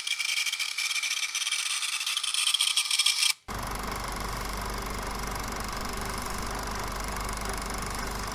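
GAF Super 8 movie camera's motor running, a fluttering high whir that stops abruptly after about three and a half seconds. It is followed by a steady machine hum with a low drone.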